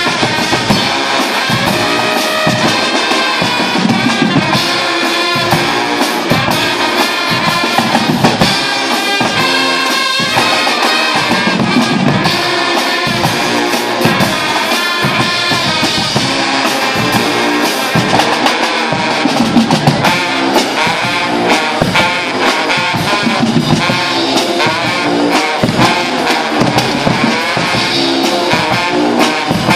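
Guggenmusik band playing loud carnival music: massed trumpets, trombones and sousaphones over a driving beat of bass drums, snare and cymbals.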